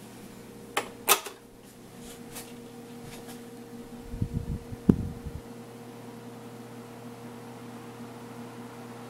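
1981 Alaska 12-inch table fan running with a steady electric motor hum. Two sharp clicks come about a second in, and a few low thumps with a click come around five seconds in.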